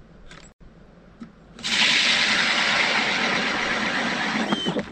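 Ice auger boring through lake ice: a loud, steady rasping noise that starts abruptly about a second and a half in and cuts off just before the end.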